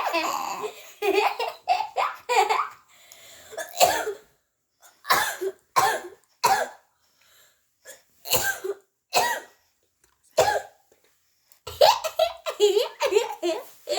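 A baby laughing in short breathy bursts with pauses between them, running into a quicker string of laughs near the end.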